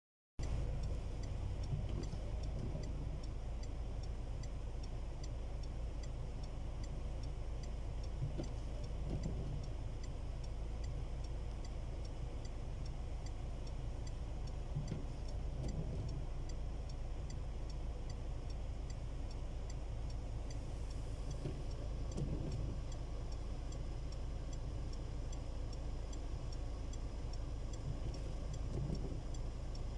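Car engine idling, heard from inside the cabin as a steady low rumble, with a regular light ticking over it.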